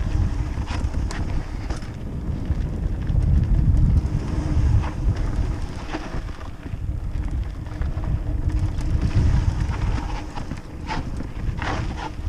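Wind buffeting a mountain bike rider's camera microphone over the rumble of tyres rolling down a dirt trail, with scattered clicks and rattles from the 2015 Giant Trance as it runs over bumps.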